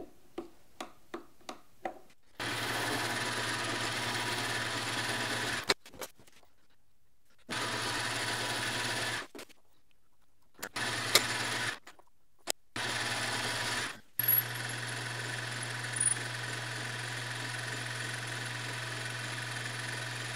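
Metal lathe running, a steady motor hum with cutting noise, turning down a small pin held in a collet. It starts and stops abruptly five times, the longest run over the last six seconds. A few light clicks of parts being handled come before it.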